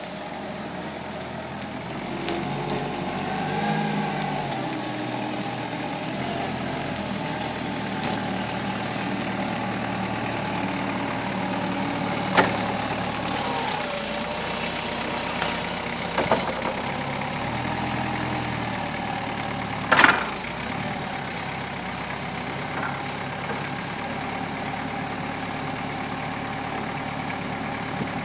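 Forklift's Toyota 1DZ-II four-cylinder diesel engine running, its pitch rising briefly a few seconds in. A few sharp clanks, the loudest about twenty seconds in.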